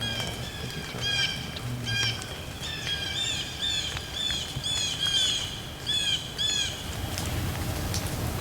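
A bird calling a quick series of short, hooked notes, about two or three a second, which stop about two-thirds of the way through; a steady low rushing noise follows.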